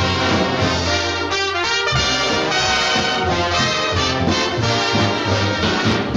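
Orchestral cartoon title music led by brass, with trombones and trumpets playing a busy, lively passage over the full orchestra.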